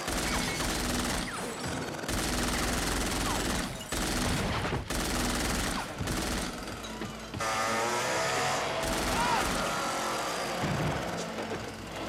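Rapid, sustained automatic gunfire in long volleys, broken by a few short pauses, in a film soundtrack with score music underneath.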